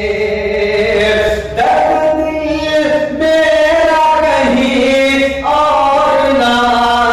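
A man singing a ghazal solo, drawing out long held notes that step from one pitch to the next, with a steady low hum beneath.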